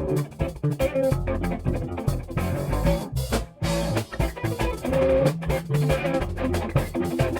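Background music with guitar, bass and a drum kit playing a steady beat.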